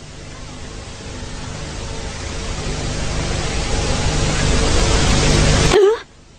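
Cartoon sound effect: a rushing noise that swells steadily louder for about six seconds, then cuts off abruptly with a short upward blip near the end.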